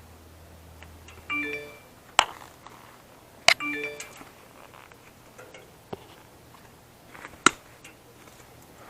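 Sharp clicks and clinks of metal parts being handled while a server rack is taken apart. Two identical short electronic tones sound about two seconds apart.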